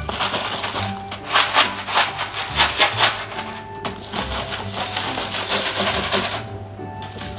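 Small plastic toy building blocks clattering as hands rummage through them in a clear plastic storage box, thickest in the first half and thinning out after about four seconds. Background music plays along.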